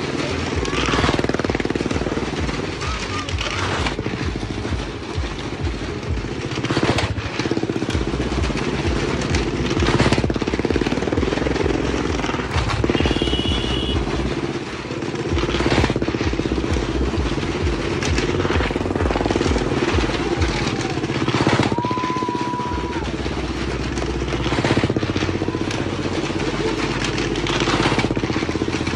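Motorcycle engines running hard and revving as the bikes circle the wall of a wooden well-of-death drum, the sound surging and falling as they pass. A short whistle-like tone sounds twice, about halfway and about three-quarters through.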